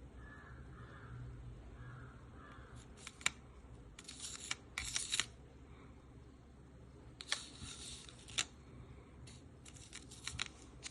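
Candy packaging being handled and opened: plastic wrapping crinkling and rustling in short, irregular bursts, with a few sharp clicks.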